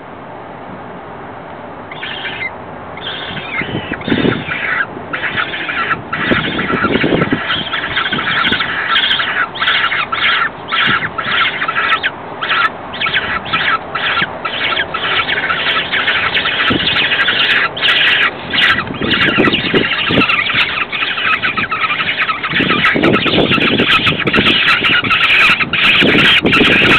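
Downy peregrine falcon chicks begging for food: shrill, rapid calls start about two seconds in and run almost without pause, growing louder toward the end. A few low rustling thumps come through under the calls.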